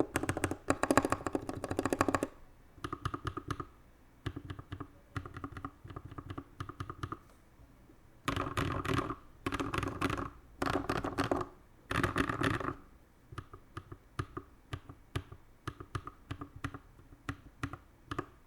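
Typing on a custom 60% mechanical keyboard with Glorious Panda tactile switches in a wooden case. There are fast runs of keystrokes at the start and again in the middle, with slower single key presses between them and towards the end.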